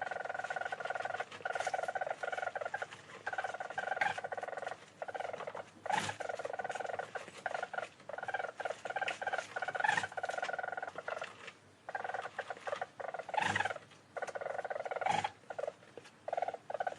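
Small weasel-family animal giving a rapid trilling chatter in repeated bouts of a second or two, broken by short pauses and a few sharp clicks.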